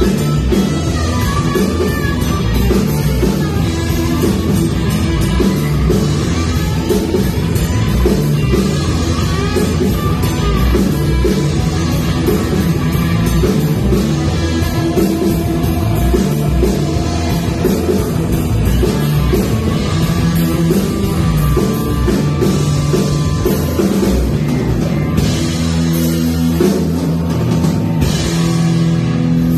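Rock band playing loud and steady, with drum kit and electric guitar.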